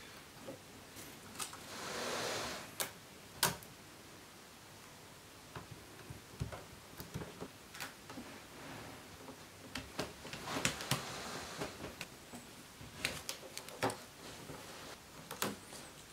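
Handling sounds while a self-adhesive LED tape light is stuck to the underside of a desk: scattered light taps and clicks, with two longer rustling swells, one about two seconds in and one about ten seconds in.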